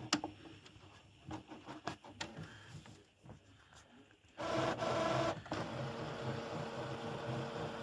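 Epson Expression Premium XP-6000 inkjet printer's mechanism starting up about halfway through with a loud whirr lasting about a second, then running steadily with a faint even pulse. It is the printer trying to feed photo paper that it keeps reporting as out of paper.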